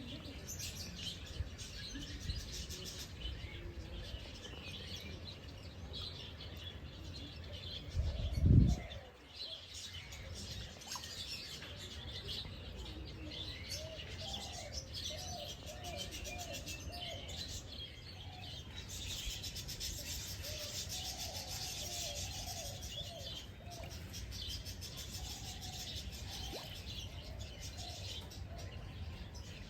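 Wild birds chirping and twittering throughout, thickest in the second half, with runs of short, lower repeated notes in the middle. About eight seconds in comes a brief low thump, the loudest sound.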